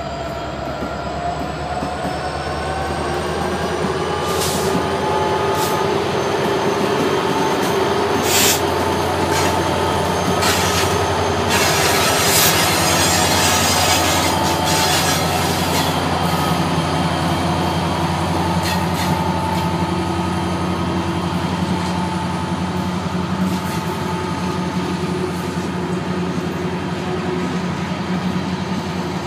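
Union Pacific diesel locomotive approaching and passing at the head of a tank train, its engine running with a steady low drone that builds over the first few seconds. The tank cars then roll by with squealing wheels and a few sharp clicks from the wheels over the rails.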